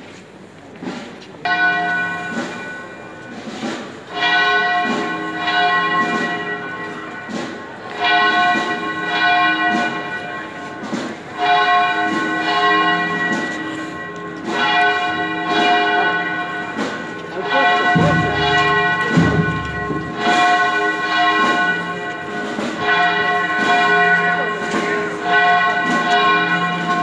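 Church bells ringing a peal, the same few bell notes struck again every one to three seconds and ringing on between strikes. A brief low rumble comes about two-thirds of the way through.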